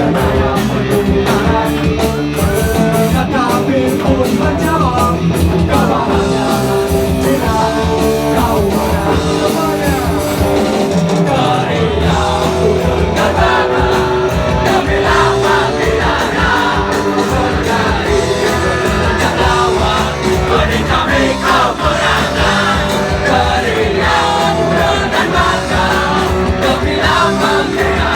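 Live rock band playing a song, with a singer over the band and a steady driving beat.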